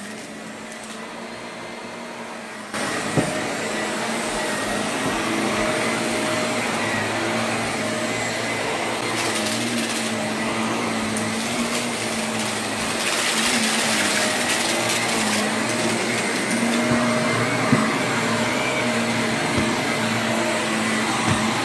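Bagless upright vacuum cleaner running steadily as it is pushed over carpet, pre-vacuuming it; it gets louder about three seconds in.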